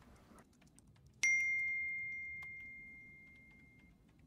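A single bright message-notification ding about a second in, ringing on and fading away over roughly three seconds.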